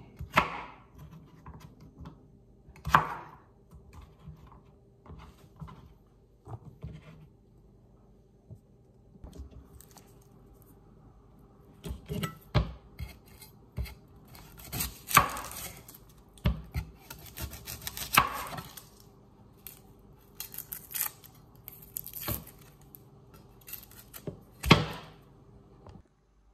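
Chef's knife on a plastic cutting board: scattered single knocks as a carrot and then an onion are cut, with papery rustling and tearing as the onion's dry skin is peeled off in the second half.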